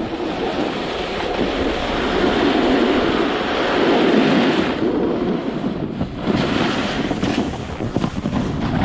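Snowboard sliding and scraping over groomed snow, a steady rushing hiss that dips briefly twice past the middle. Wind buffets the camera microphone.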